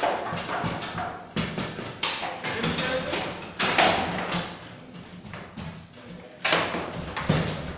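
Foosball match in play: the ball clacking off the players and the table walls and rods knocking, a string of sharp, irregularly spaced hits.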